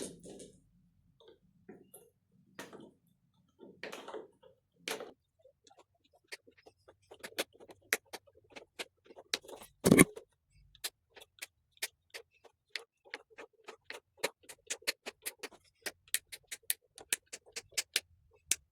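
Wire mesh being cut with wire cutters: a long run of sharp clicks, about three a second, as the strands are snipped one after another. In the first few seconds there is scraping and rustling as the mesh is handled, and there is one louder knock about ten seconds in.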